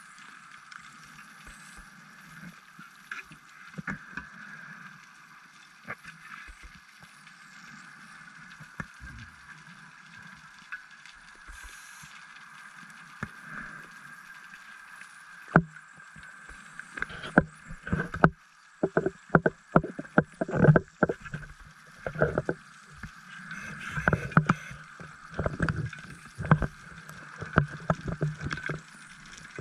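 Underwater sound picked up through a dive camera housing: a steady hum, then from about halfway through, many sharp clicks and short bubbling bursts, louder than the hum.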